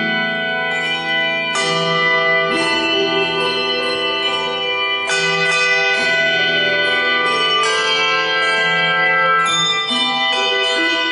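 Brass handbells rung by a small ensemble, playing a slow piece. Chords of bright ringing tones overlap and sustain, with new notes struck every second or two.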